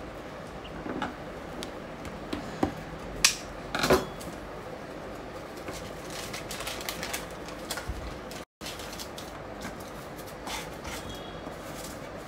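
Butter paper being handled and pressed into a round metal cake tin to line it: scattered crinkles, clicks and light knocks, with two louder clatters about three and four seconds in.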